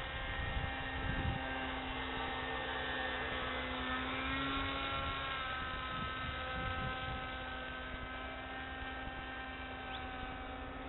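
Radio-controlled Siebel 201 model aircraft's motor droning steadily as it flies overhead at a distance, its pitch shifting gently about four seconds in as it passes.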